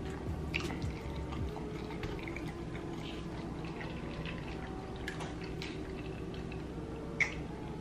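Close-up eating sounds of fried chicken in spicy sauce being chewed: scattered small wet clicks and smacks, with one sharper click near the end, over a steady low hum.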